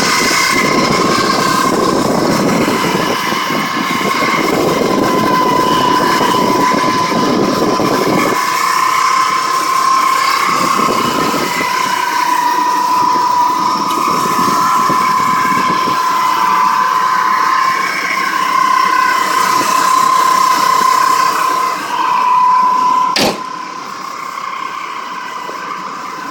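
A loud, steady high-pitched whine that wavers slightly in pitch, with rumbling noise under it for the first eight seconds or so. A sharp click comes about 23 seconds in, after which it is quieter.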